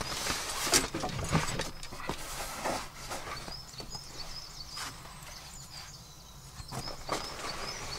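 Rustling fabric and knocks from a rolled-up bag with a strap and metal buckle being dragged out of a vehicle's load floor and hoisted onto a shoulder, with footsteps on leaf litter. Short bird chirps come through in the quieter middle stretch.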